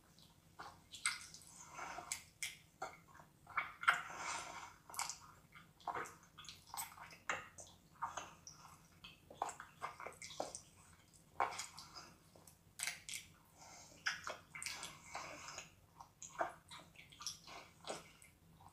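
Close-up wet mouth sounds of eating a whole live octopus: slurping, sucking and squelching as the tentacles are chewed and pulled at the lips, in a rapid, irregular run of wet smacks and clicks.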